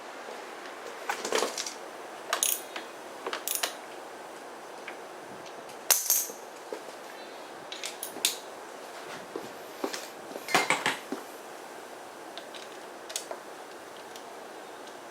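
Metal hand tools and small outboard-motor parts clinking and knocking in short irregular bursts, with a steady faint hiss behind. The clinks are the shift-lever parts of a Tohatsu two-stroke outboard being reassembled after greasing.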